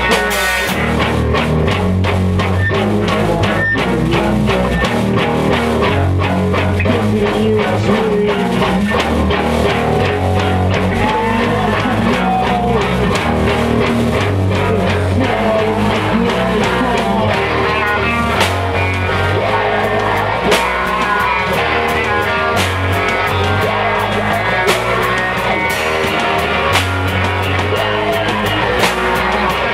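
Live rock band playing loudly: electric guitar and bass guitar over a drum kit with frequent cymbal hits.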